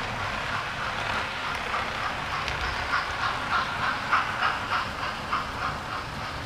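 Model steam locomotive and coaches running on model railway track, with wheels clicking over the rail joints in a regular beat of about three a second. The clicking is loudest about halfway through as the coaches pass close by.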